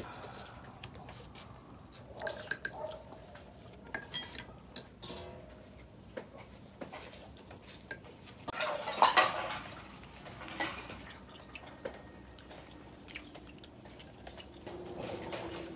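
Tableware at a meal: chopsticks and a metal ladle knocking and clinking against a hot pot and glass bowls in scattered strokes, a few of them ringing, with a louder burst of noise about nine seconds in.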